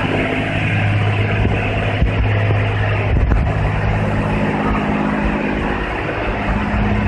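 Touchless automatic car wash machine running: a steady low pump hum under a rushing hiss of water spray.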